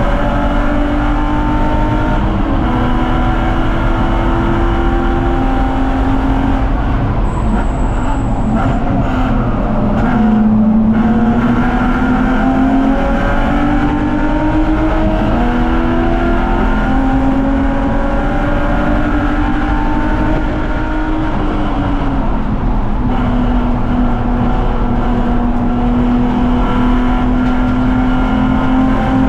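BMW 330Ci race car's straight-six engine at racing speed, its pitch climbing through the gears with drops at the shifts, and falling under braking about ten seconds in before pulling again.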